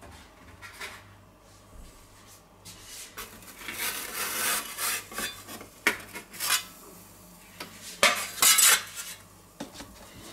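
Pizza peel scraping and knocking against the stone of an electric pizza oven as a pizza is slid in: a run of scrapes and clatters, loudest about eight seconds in.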